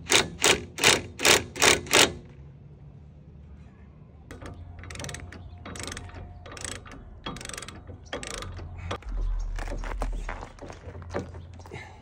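Brake caliper bolt being run in with a cordless ratchet in about six sharp, evenly spaced pulses during the first two seconds. After that a hand ratchet wrench clicks back and forth in irregular strokes as the bolt is tightened by hand.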